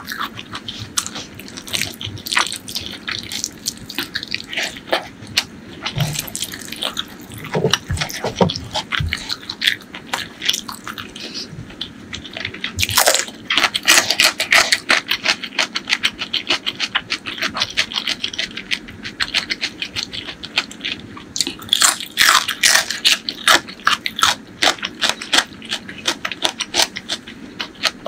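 Close-miked chewing by one person eating, full of rapid wet mouth clicks and smacks, which come thickest in runs about halfway through and again a few seconds later.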